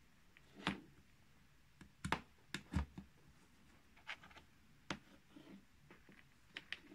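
Scattered sharp clicks and light knocks from handling small parts: push-on connectors on red wires fitted to a KB Electronics motor controller board's terminals, and a toggle switch handled on its leads.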